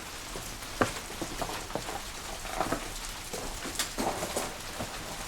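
Wood fire burning inside a traditional wood-fired kiln: a steady rushing noise with irregular sharp pops and crackles.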